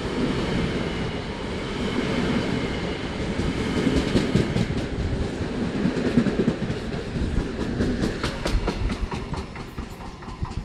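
LIRR M7 electric multiple unit passing at speed close by without stopping: a steady rumble of steel wheels on rail. From about seven seconds in comes a quick run of wheel clicks over the track, and the sound fades near the end as the train goes by.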